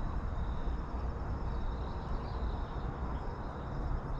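Outdoor ambience: wind rumbling on the microphone, with a faint steady high chirring of insects.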